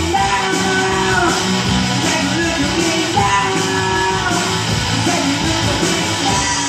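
Live rock band of electric guitars, bass guitar and drum kit playing a song, with a sung lead vocal line over it.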